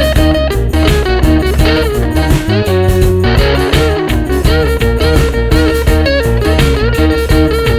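Background music led by guitar over a steady bass beat, with notes that bend and slide in pitch.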